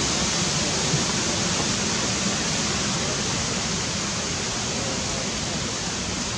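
A steady, even rushing noise with no distinct events, fading slightly toward the end.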